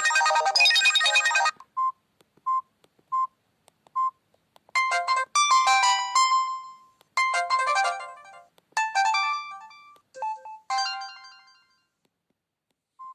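Samsung E1125W phone's built-in polyphonic tones from its speaker: a busy melody cuts off about a second and a half in, then four short single beeps follow, then a bright chiming melody in several short phrases that fades out near the end.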